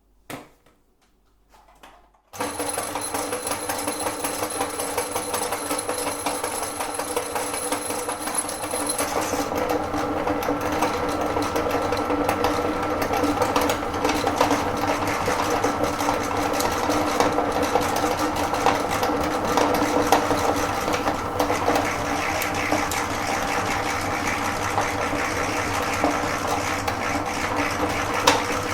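Electric meat grinder switched on about two seconds in and running steadily, its motor giving a constant hum with a high whine on top that stops partway through.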